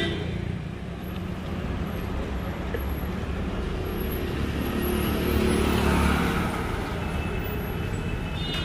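Street traffic: a steady low rumble of passing road vehicles, swelling as one passes louder about five to six seconds in.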